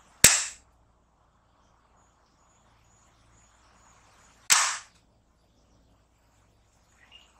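Two sharp claps about four seconds apart, each switching a sound-activated LED lamp on or off.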